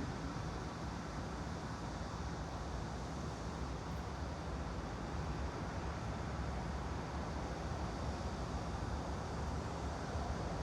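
Steady white-noise ambience: an even hiss with a low, constant hum underneath and no distinct events.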